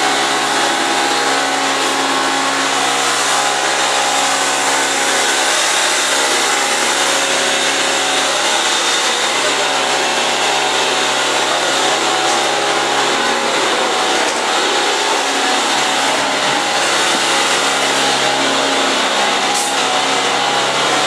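Leslie RS-3L three-chime locomotive air horn held open on compressed air, sounding one long, steady chord of several notes with a rush of air.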